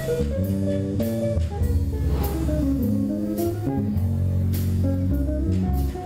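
Live band playing an instrumental passage without vocals: electric guitar over electric bass and a drum kit with cymbal hits, in a jazz-blues style.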